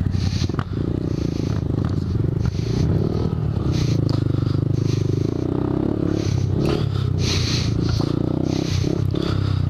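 Motorcycle engine running steadily while being ridden along a dirt trail, its note dipping and rising again about three to four seconds in, with short bursts of hiss over it.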